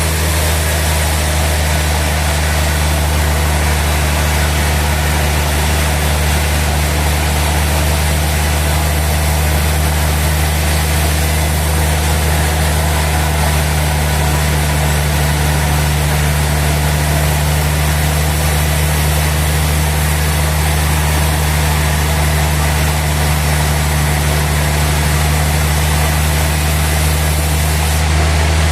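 Sawmill machinery running steadily, a loud deep engine-like hum with an even rush of noise over it and no change in pace.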